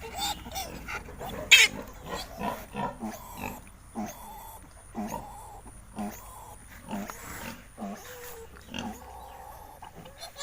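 Pigs grunting in a steady series, about one grunt a second, with one short, sharp squeal about one and a half seconds in.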